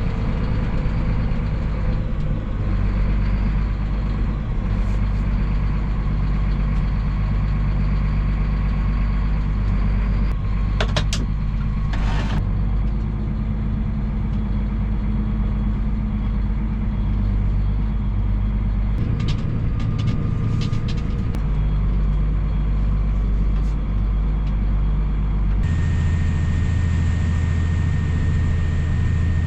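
Heavy farm-machinery engine running steadily, with a few short sharp clicks about eleven seconds in and again around twenty seconds. Near the end the engine note changes and a steady high whine joins it.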